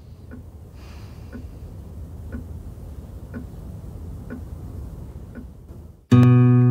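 A clock ticking about once a second over a low rumble that slowly swells. About six seconds in, loud strummed acoustic guitar music cuts in suddenly.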